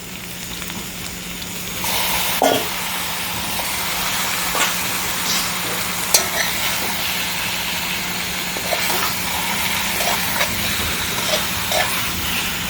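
Boiled ground provision frying in hot oil in a pan: a steady sizzle that gets louder about two seconds in, with scattered light clicks of a utensil against the pan.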